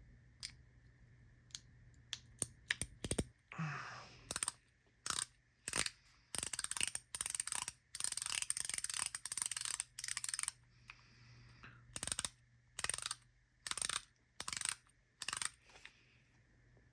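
EDC fidget toy with ball-and-spring detents, freshly assembled, being clicked through its positions: a few single clicks, then repeated bursts of rapid sharp clicking with short pauses between them.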